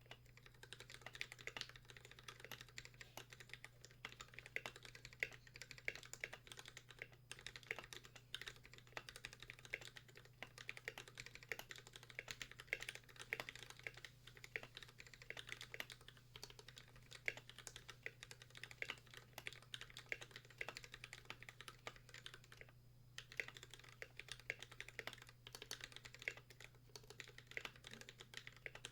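Typing on an Idobao ID80 mechanical keyboard with Akko Pink v1 switches lubed with Super Lube and NK_ x Tai-Hao BoW Cubic keycaps. Keystrokes come fast and continuously, with a brief pause about 23 seconds in.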